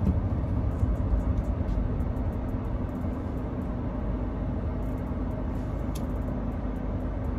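Car interior noise while driving: a steady low rumble of road and engine noise with a faint steady hum.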